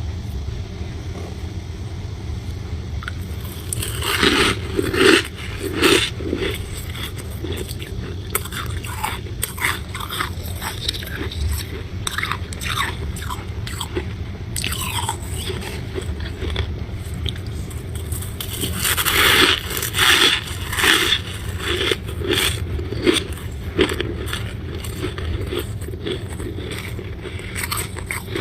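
A person biting and chewing a crunchy chunk of freezer frost: many crisp crunches, with denser, louder clusters about four seconds in and again a little past the middle, over a steady low hum.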